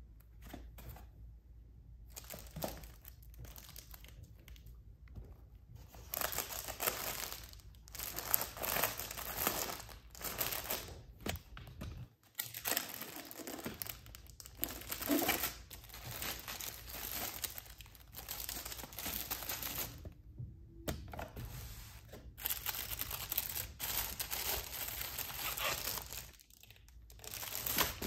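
Crinkling and rustling of clear plastic sleeves as a hand flips through packaged prints and stickers, irregular and starting in earnest a few seconds in, with a couple of brief pauses.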